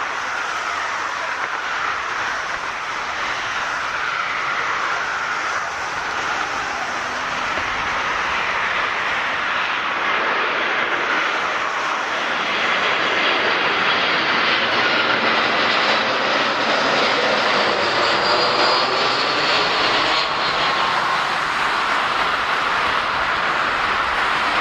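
Airbus A319-112's CFM56 turbofan engines on a landing, a steady jet rumble with whining fan tones that shift in pitch, growing louder towards about three-quarters of the way through.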